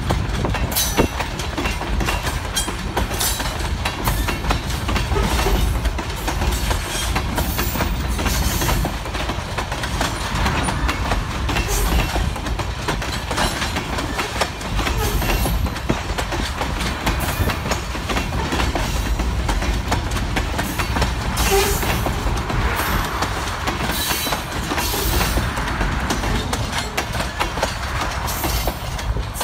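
Open-top hopper cars of a CSX rock train rolling past close by: a steady rumble of steel wheels on the rails, with a constant patter of short clicks and rattles from the cars.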